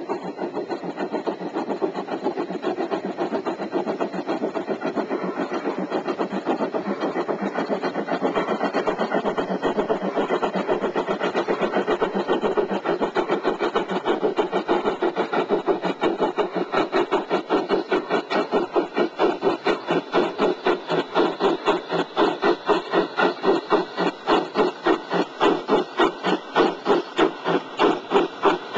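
Bachmann large-scale Shay model locomotive running with its train on garden-railway track. A steady mechanical clatter turns, about halfway through, into an even rhythmic beat of about three a second that grows louder toward the end.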